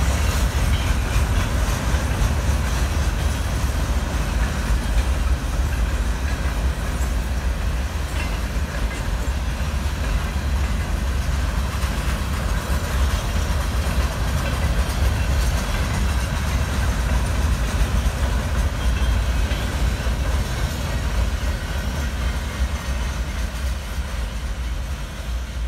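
Freight train boxcars rolling past: a steady low rumble of steel wheels on rail that fades near the end as the last cars go by.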